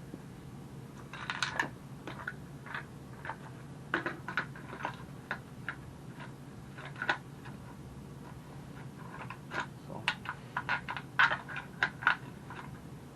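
Irregular light clicks and taps of small hard parts being handled as a replacement recoil pull-start housing is fitted onto a 49cc pocket bike engine, more frequent near the end. A faint steady low hum runs underneath.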